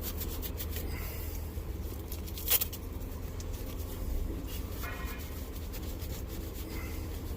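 Work gloves being pulled on: soft rubbing and rustling over a steady low rumble, with one sharp click about two and a half seconds in.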